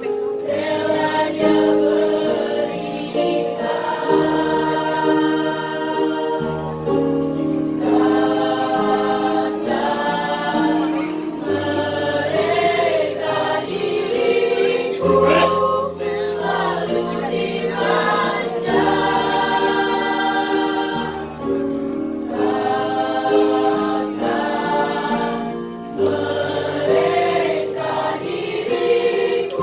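A choir of girls singing in harmony, holding chords that change every second or two.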